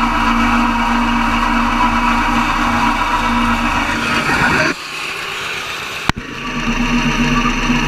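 John Deere 70 two-cylinder tractor engine running under load while its Mott 88 flail mower chops tall grass: a steady, loud mechanical drone with a whirring rotor. The sound drops for a moment about five seconds in, with a sharp click about six seconds in, then the drone returns.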